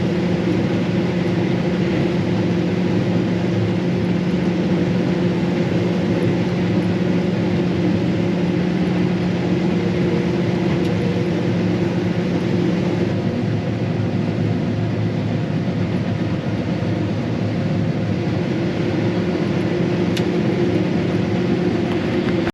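Combine harvester running steadily while harvesting soybeans: a constant mechanical drone with a steady hum, whose lower tone fades out about halfway through.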